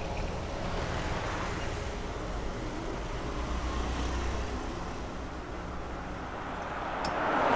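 Motor scooter engine running and pulling away, over steady street traffic noise. A brief, louder rush of noise swells and cuts off near the end.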